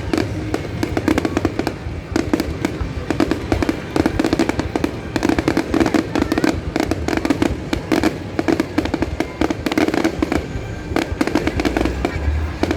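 A fireworks display going off continuously: a dense run of rapid bangs and crackling shells with no pause.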